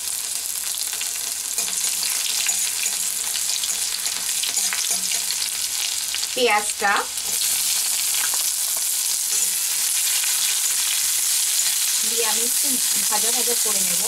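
Chopped garlic sizzling in hot oil in a metal kadai, stirred with a spatula. A short squeaky sound comes about six and a half seconds in, then sliced onions go in and the sizzling grows fuller.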